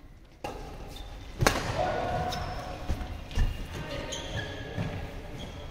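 Badminton rally: sharp racket hits on the shuttlecock and thuds of feet on the court, the loudest about a second and a half in and two more around three seconds, with short squeaks of shoes on the court mat.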